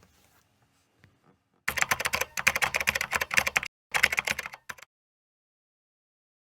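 Rapid, dense clicking like typing on a keyboard, starting a couple of seconds in, breaking off for a moment, then stopping abruptly.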